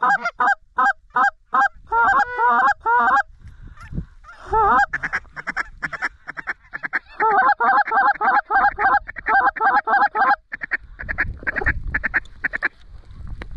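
Geese honking and clucking in fast strings of short, bending notes, broken by brief pauses about three and a half and ten and a half seconds in.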